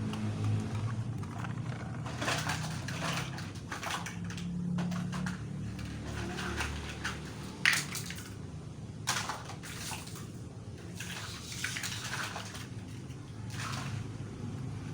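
Repeated gritty scraping and pouring of sand with toy vehicles, over a steady low hum, with one sharp click near the middle.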